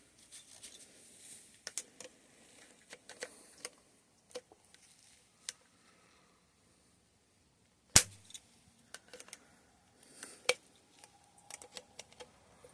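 Small metal clicks and clinks of hand tools working on a suspension fork's parts, with a sharp snap about eight seconds in and another about two and a half seconds later.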